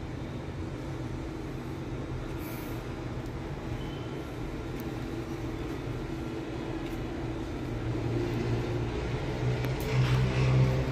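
Steady low rumble with a hum, swelling louder about eight seconds in and peaking near the end.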